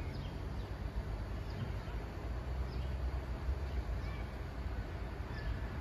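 Outdoor background: an uneven low rumble with a few faint, short bird chirps scattered through it.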